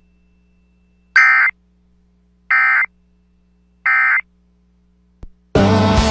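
Emergency Alert System end-of-message (EOM) signal: three short bursts of buzzing digital data tones, evenly spaced. Near the end, the radio station's music programming cuts back in.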